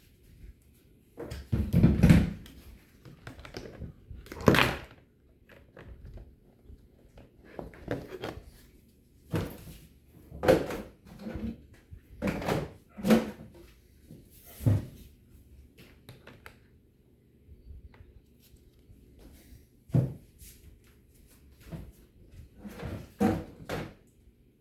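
Irregular knocks and clatter of hard objects being picked up and set down, as in rummaging through a box or drawer; the loudest thumps come about two and about four and a half seconds in.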